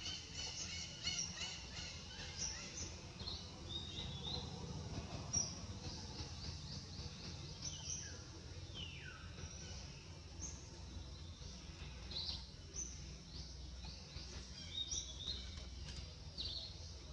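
Birds chirping and calling, many short, varied chirps with a longer falling call near the middle, over a steady low background rumble.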